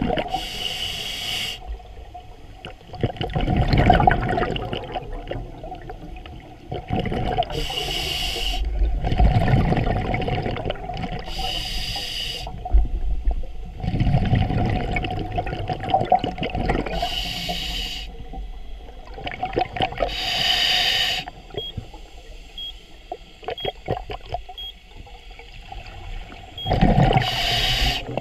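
Scuba diver breathing through a regulator underwater: six short hissing inhalations, each followed by a longer low bubbling exhalation.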